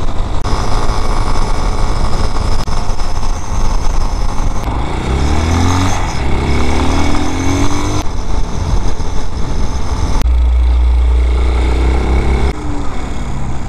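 The Vitacci Raven 250's 229cc air-cooled single-cylinder engine running as the bike is ridden along the road, its pitch rising as it accelerates around the middle. The sound changes abruptly a few times.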